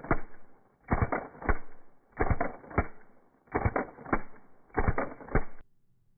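WE-Tech Desert Eagle gas blowback airsoft pistol firing about five shots, roughly one every second and a quarter. Each shot is a cluster of sharp clicks followed by a second click. The firing stops abruptly near the end.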